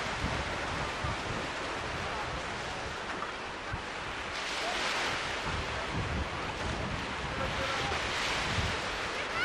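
Surf breaking on a beach, the wash swelling about four and a half seconds in and again near the end, with wind buffeting the microphone.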